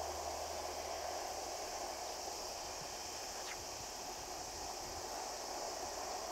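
Steady, even outdoor background hiss with no distinct event, and one faint brief chirp about three and a half seconds in.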